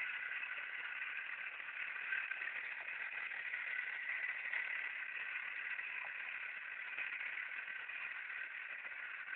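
The small motor of a homemade model tractor running steadily as it pulls a trolley, a constant high whine with no rise or fall.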